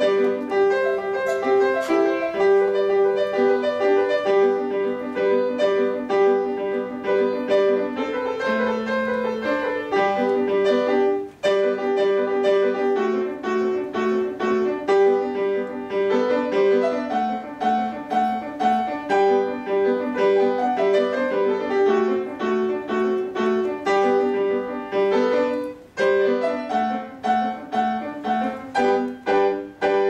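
Solo grand piano playing a fast classical piece, a dense run of quick notes with short breaks about eleven seconds in and again near twenty-six seconds.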